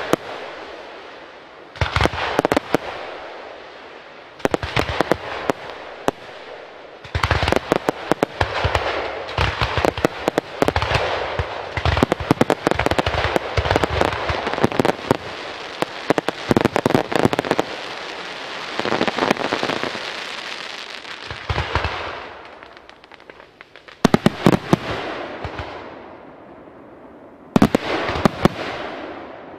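Aerial fireworks display: volleys of shell bursts and crackling, rising to a dense continuous barrage in the middle, then separate volleys near the end.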